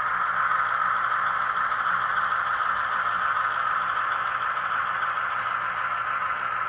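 HO scale model diesel locomotive running along the track: a steady whir from its motor and wheels together with its sound decoder's diesel engine sound, getting slightly quieter toward the end as it moves away.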